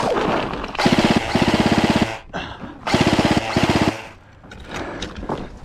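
Unupgraded G&G F2000 airsoft electric rifle firing on full auto: a fast, even rattle in four short bursts, two pairs about a second apart.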